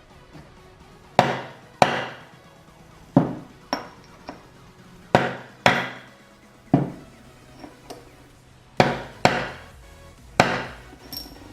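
Hammer driving a pin punch to knock a worn, cracked bushing out of a 4L60E transmission's input sun gear: about a dozen sharp metal blows with a brief ring, often in pairs, roughly a second apart.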